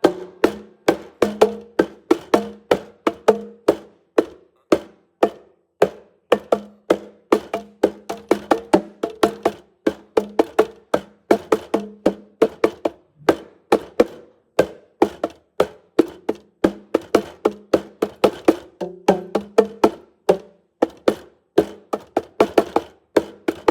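A rapid, uneven run of sharp wooden-sounding taps or knocks, about three to four a second, each with a short ring, over a faint steady low hum.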